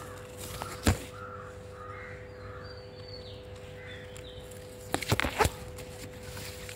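A bird calling four or five times in quick succession, over a faint steady hum. Louder knocks and rustles of leaves brushing against the phone come about a second in and again around five seconds.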